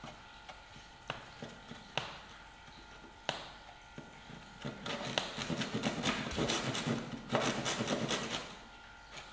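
Dozuki hand saw cutting a thin pine kumiko strip: a few light knocks, then about four seconds of quick sawing strokes in two runs with a brief break.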